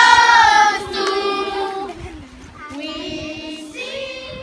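Voices singing a song, holding long notes, loudest in the first second and softer from about two seconds in.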